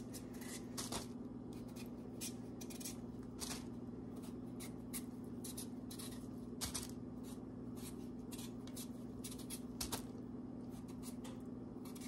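Paring knife peeling a raw potato by hand: short, irregular scrapes and clicks of the blade cutting through the skin, over a faint steady hum.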